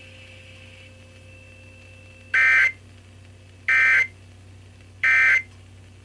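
NOAA Weather Radio end-of-message data bursts from a Midland weather alert radio's speaker: three short, identical buzzy screeches about a second and a half apart, the EAS/SAME end-of-message code that closes the severe thunderstorm warning broadcast.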